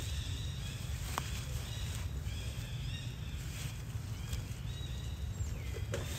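Outdoor ambience of steady low rumble with many short, high chirping animal calls repeating throughout, and a single sharp click about a second in.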